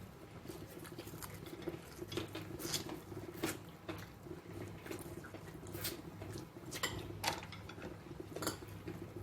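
A person eating close to the microphone during a mukbang: chewing and smacking with irregular sharp clicks.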